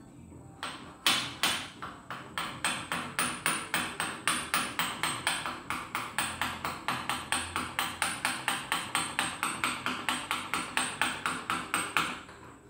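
Small hammer tapping on the crown of a Lister JP-series diesel piston as it is fitted into the cylinder. Two harder strikes come about a second in, then a steady run of quick light taps, about four a second, that stops near the end.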